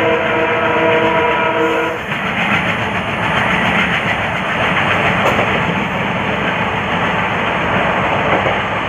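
WDM3D diesel locomotive's horn sounding a steady chord that cuts off about two seconds in, followed by the loud, steady rumble and wheel clatter of the running train.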